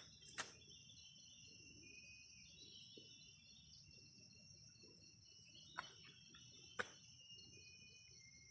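Faint rainforest insect chorus: steady, high-pitched trilling of crickets or cicadas at several pitches at once. Three short sharp clicks break in, one about half a second in and two close together around six to seven seconds in.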